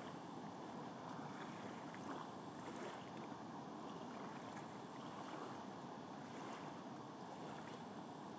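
Faint, steady rush of whitewater pouring over a small river cascade.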